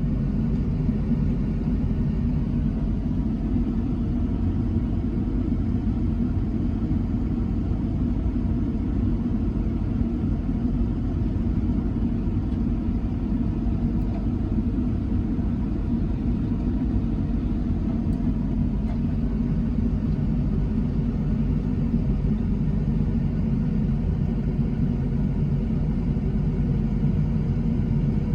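Truck engine running steadily, a low even rumble heard from inside the cab.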